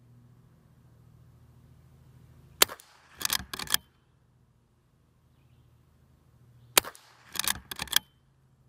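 Two shots from a Henry H001 lever-action .22 LR rifle, about four seconds apart. Each sharp report is followed by a short clatter as the lever is worked to chamber the next round.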